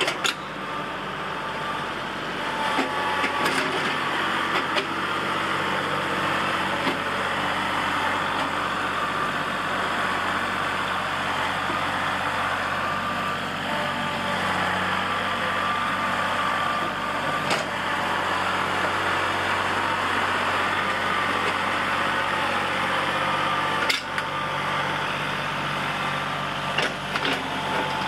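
Kubota L3901 tractor's three-cylinder diesel engine running steadily while it drags a box blade over loose dirt. A few sharp knocks cut through the engine noise, twice fairly loudly after the middle.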